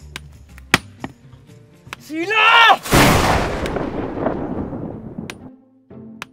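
A loud explosion-like boom with a long fading rumble, a sound effect laid over a sledgehammer blow on rock. Two sharp knocks come about a second in, before the boom.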